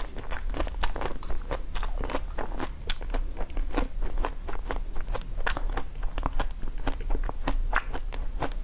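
Close-miked eating sounds: a frozen sweet being bitten and chewed, with crisp crunching and many sharp crackles several times a second.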